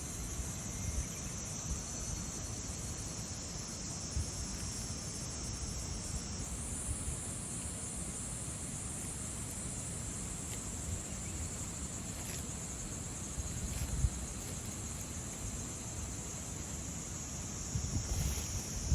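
Insects chirring in one continuous high drone. It steps up higher about a third of the way in and drops back near the end, over a low rumble of wind on the microphone.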